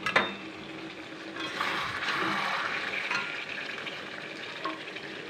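Thick chicken and potato curry sizzling in its released oil as a spatula stirs it, at the kosha stage where the oil has separated from the meat. There is a click of the spatula against the pan at the start and a louder stretch of hissing from about a second and a half to three seconds in.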